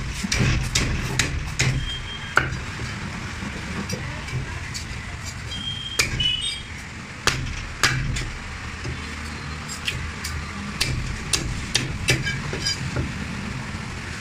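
Knife and cleaver cutting a large rohu fish on a wooden log chopping block: irregular sharp chops, scrapes and knocks against the fish and the wood.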